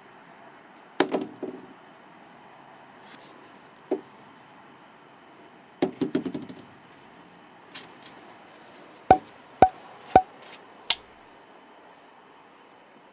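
Smartphone in a plastic case knocking and clattering on a wooden workbench top as it is stood up and tips over flat. Later come three sharp knocks about half a second apart and then one more.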